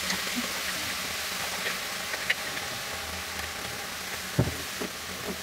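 Salted shredded cabbage sizzling with a steady hiss in a hot pan, with a few light knocks, the loudest about four seconds in.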